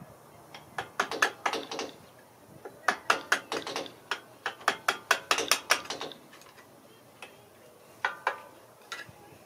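Hand ratchet wrench clicking as it is swung back and forth on a front brake caliper bolt, in four bursts of rapid clicks, the last one short.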